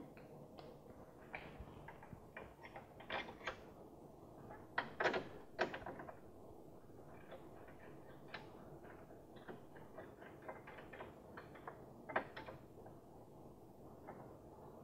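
Faint, scattered metallic clicks and taps of brake-caliper mounting bolts being threaded in by hand and fingers working against the caliper, with a few louder knocks about five seconds in and again near twelve seconds.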